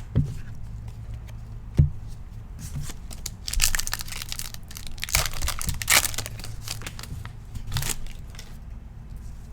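Trading cards and their packaging being handled: crinkling and rustling, with a couple of light taps early on and the loudest rustling in the middle.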